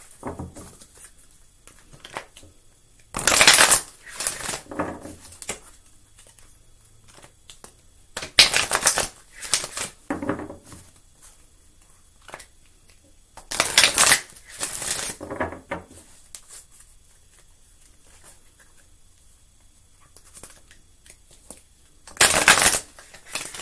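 A deck of oracle cards being shuffled by hand, in four short bursts of riffling and sliding card noise, each about a second long, with quiet pauses and faint card clicks between them.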